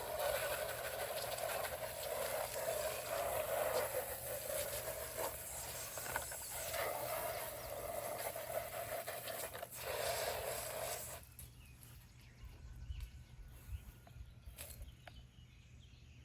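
Garden hose spraying water in a steady rush, with a few brief breaks, cut off suddenly about eleven seconds in.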